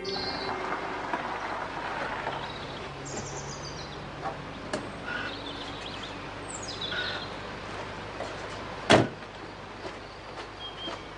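A BMW convertible pulling up and stopping, its engine running low, then a car door slams shut once about nine seconds in.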